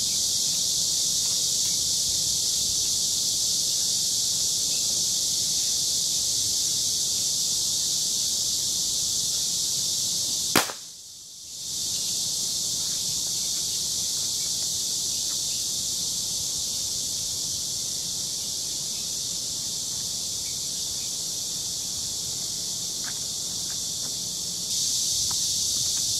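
A single sharp revolver shot about ten seconds in, which bursts the balloon perched on a goblet, over a steady high buzz of insects; the insect buzz drops away for about a second right after the shot.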